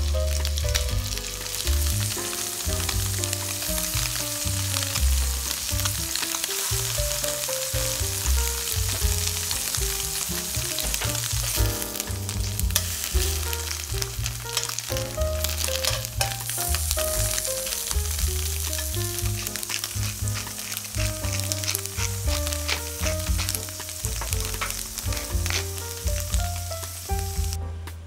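Firm tofu cubes sizzling as they fry in olive oil in a steel frying pan, under background music with a bass line. The sizzle cuts off just before the end.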